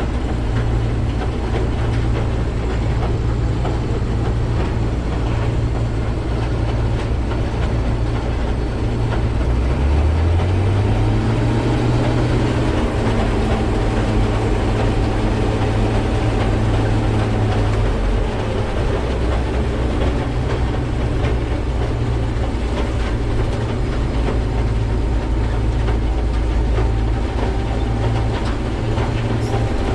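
Case 2144 combine running steadily with a low, even drone. About ten seconds in, a low hum rises in pitch and holds for several seconds before dropping back.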